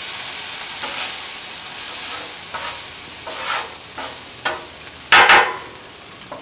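Black beans sizzling on a Blackstone flat-top griddle while a metal utensil presses and scrapes them against the steel to make refried beans, with several short scrapes and a louder metal sound about five seconds in.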